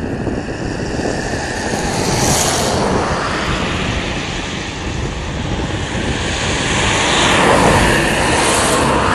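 Wind rumbling on the microphone and road traffic passing on the bridge, a steady rushing noise that swells twice, about two seconds in and near the end.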